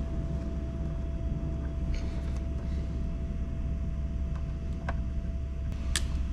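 Power-cable wires being crimped into heat-shrink butt joiners: a couple of sharp clicks near the end, over a steady low hum.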